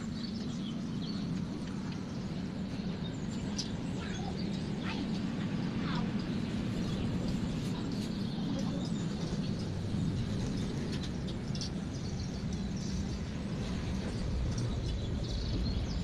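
Outdoor background sound: small birds chirping now and then over a steady low rumble.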